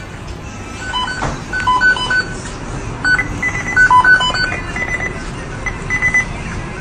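A tune played in short, high electronic beeps that step between a few pitches, over a low steady rumble.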